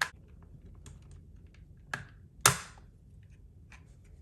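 Plastic clicks as a plastic pry tool works under an Xbox One controller's grip panel and its latches unseat: a sharp click at the start, a small one about two seconds in and a louder one half a second later, with faint ticks between.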